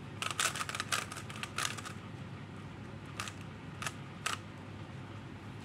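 Plastic 3x3 Rubik's cube being turned by hand, its layers clicking as they snap round: a quick run of clicks in the first two seconds, then three single clicks a little later.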